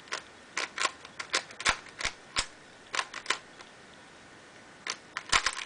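Plastic dollar-store 3x3 puzzle cube, lubricated with silicone spray, having its layers turned fast during a solve: quick runs of sharp clacking clicks, a pause of about a second, then a dense flurry of turns near the end.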